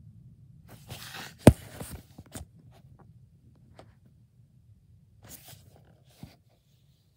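Handling noise from a plastic DVD case being turned over in the hand: rustling, with one sharp click about a second and a half in, a smaller knock soon after, and another short rustle and knock near the end.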